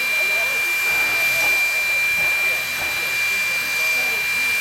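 Steam locomotive hissing steam, a loud, even hiss with a thin high whine held steady through it and no exhaust beat.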